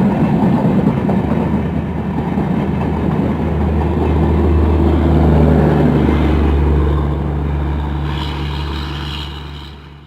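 EMD diesel locomotive on a passing train: wheel-and-rail rumble at first, then the two-stroke engine's steady low drone takes over. A higher whine joins near the end as the sound fades away.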